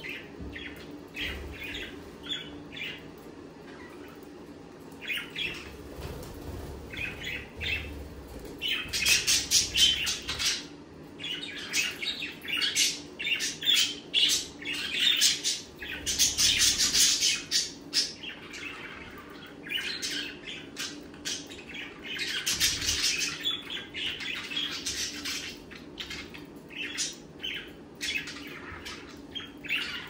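A flock of budgerigars chattering: many quick chirps and squawks overlapping, coming in busy runs of rapid calls that rise and fall several times, loudest around the middle.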